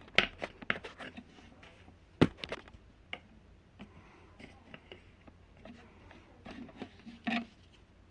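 Irregular sharp clicks and taps of small objects being handled, loudest about two seconds in, with a short, fuller burst near the end.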